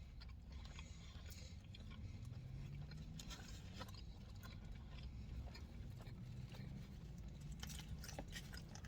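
A person chewing a roast beef and cheddar sandwich close to the microphone: faint, scattered soft mouth clicks and smacks.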